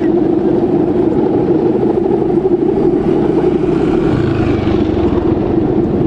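Steady buzzing drone of the guangan, the hummer bow strung on a giant Balinese bebean kite, humming in the wind. A deeper rumble swells briefly in the middle.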